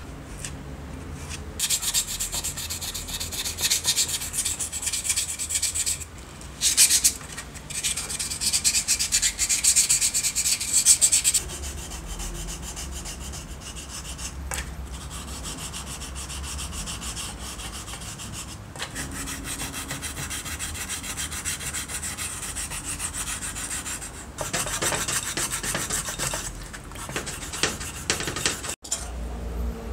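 Sandpaper rubbed by hand in quick back-and-forth strokes over the cast-aluminium housing of a 1950s Wen All-Saw jigsaw. After about twelve seconds the strokes grow softer as the sanding continues wet, in a tray of water. The strokes grow louder again for a couple of seconds near the end.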